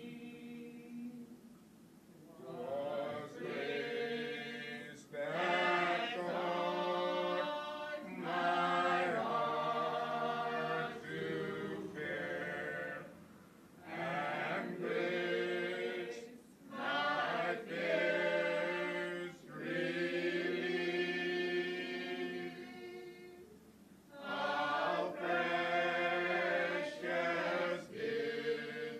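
A choir singing, in phrases of a few seconds broken by short pauses.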